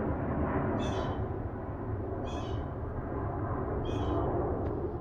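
An animal's short high call, repeated about every one and a half seconds (three times), over a steady low background rumble.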